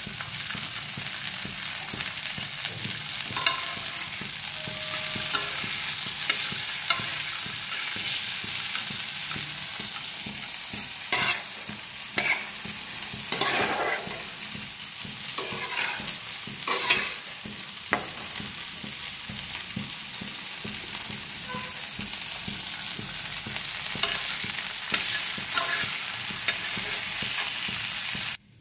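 Onions, tomatoes and cashews sizzling in oil in a steel pan, with a steady hiss, stirred with a metal spatula that scrapes and clinks against the pan now and then. The sound stops suddenly near the end.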